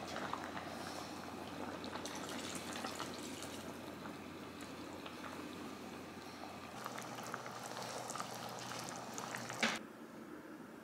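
Liquid in a kitchen: a steady watery hiss with small ticks. It stops sharply after a knock about a second before the end.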